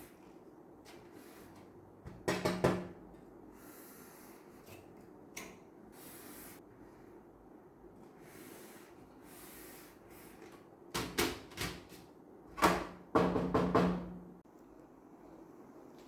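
A PC case and its panels being handled, clattering and knocking in two bursts: a short one about two seconds in and a longer, louder one from about eleven to fourteen seconds.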